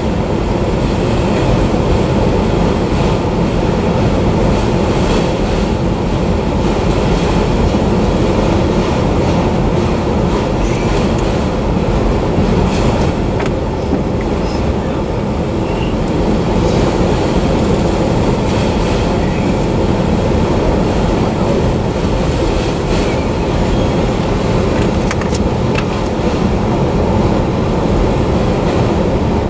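Autorack freight cars rolling past close by: a loud, steady rumble of steel wheels on rail, with a few sharp clanks.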